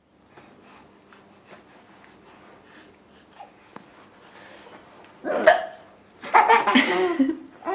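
A mother hiccups once, sharply and loudly, about five seconds in. About a second later comes a burst of laughter.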